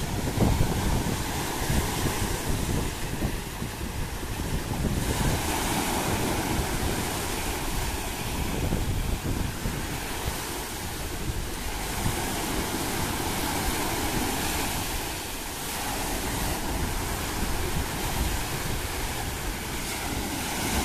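Rough sea surf: choppy waves breaking and washing up the shore in high seas, with wind buffeting the microphone.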